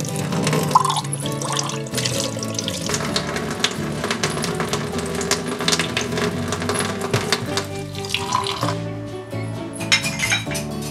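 Tap water running into a stainless steel sink while spoons, glasses and cups are rinsed, with light clinks of cutlery and glassware, over background music.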